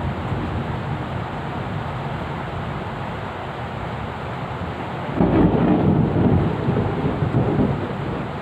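Thunder rumbling over steady rain: a loud, deep rumble starts about five seconds in and fades over the next three seconds.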